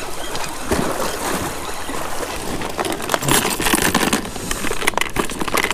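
A spinning reel being cranked to wind in a line, then a clear plastic bag crinkling and small tackle clinking as gear is handled, with the crackling densest in the second half.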